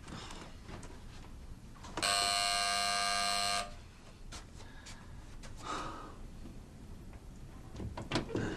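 Electric door buzzer sounding once, a harsh steady buzz lasting about a second and a half, a visitor at the door. Faint knocks and rustles follow.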